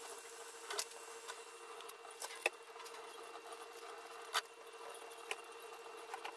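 Kitchen tap water running into a stainless steel sink while live land crabs are scrubbed by hand, with scattered hard clicks and knocks of crab shells against the sink and its wire rack, the sharpest about two and a half and four and a half seconds in. A steady hum runs underneath.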